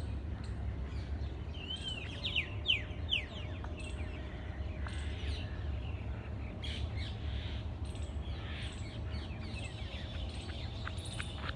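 Birds chirping and calling, with a quick run of falling chirps a couple of seconds in, over a steady low rumble.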